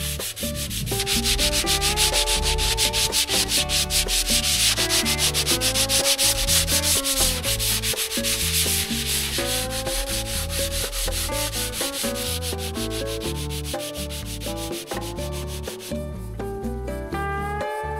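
Sandpaper rubbed by hand back and forth over a weathered wooden tabletop in quick repeated strokes, stripping the old varnish. The sanding stops about two seconds before the end. Background music plays underneath.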